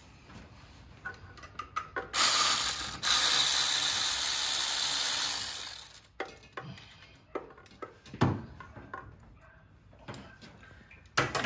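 A hand socket ratchet being worked: about two seconds in there is a loud run of fast ratcheting lasting about four seconds, with a short break, among lighter clicks and taps of tools.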